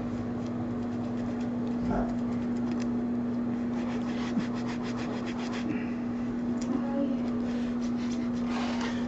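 Fingers rubbing damp bleach granules into a shirt front, a light rapid scratching of skin on fabric, over a steady electrical or fan hum.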